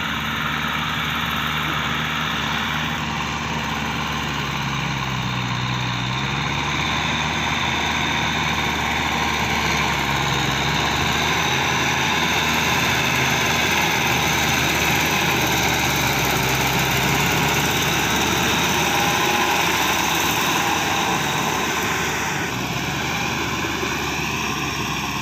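Kubota farm tractor's diesel engine running steadily as it tills a flooded rice paddy with a rear rotary tiller. Its low drone shifts slightly in pitch now and then.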